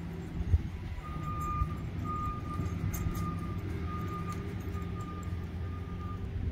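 A vehicle's back-up alarm beeping at one steady pitch about once a second, starting about a second in, over a low engine rumble. A single thump comes just before the beeps start.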